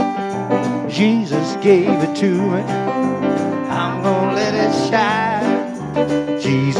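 Live worship band playing a song: electric keyboard chords with a man singing at the keyboard, his held notes wavering with vibrato.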